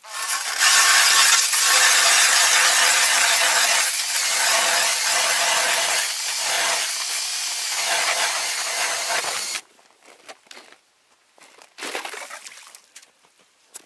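Makita BDF458 cordless drill spinning a 110 mm Tonar ice auger, boring a hole in the ice: a loud, steady grinding hiss of the blades cutting ice, with the drill motor's whine in it. It stops suddenly about ten seconds in, followed by a few faint scrapes.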